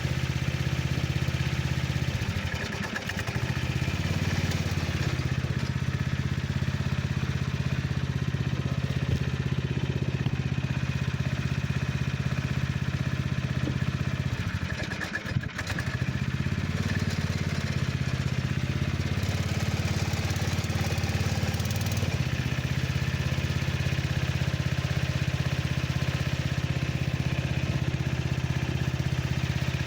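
A small engine or motor running steadily, a low hum that dips briefly about three seconds in and again midway, with a single click at the second dip.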